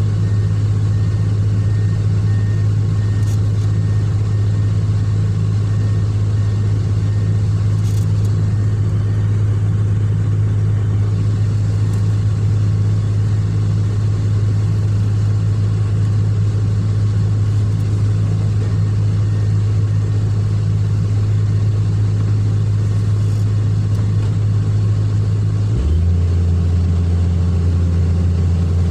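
Excavator's diesel engine running steadily, a low even hum that drops slightly in pitch near the end as the engine speed falls.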